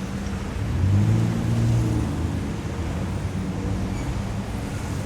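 City street traffic: steady road noise with engine hum, one vehicle's engine swelling louder about a second in and easing off again after two seconds.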